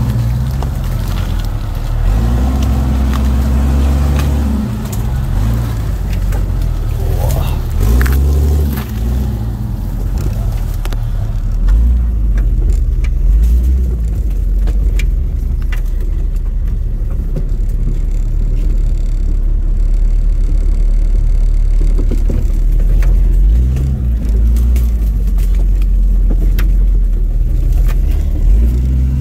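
Jeep engine running under load on a rough trail, the revs rising and falling several times, with scattered knocks and clicks over a heavy low rumble.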